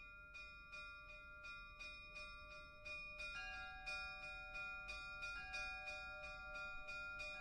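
Faint bells chiming in an even repeating pattern, about three strikes a second, with a second set of higher-pitched bells joining a few seconds in.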